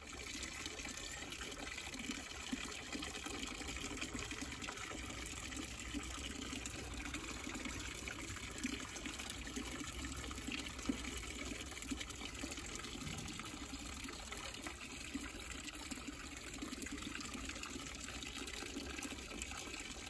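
A stream of water pouring steadily from a spout into a tub of bathwater, splashing on the surface.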